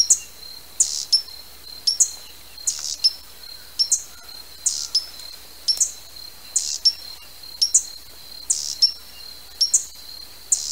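Costa's hummingbird giving sharp, high chip calls, about two a second and often in close pairs, over a steady thin high whine.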